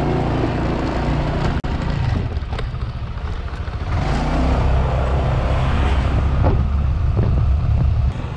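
Motorbike engine running while riding along a road, with wind rushing over the camera microphone; a steady low rumble that drops out briefly about one and a half seconds in.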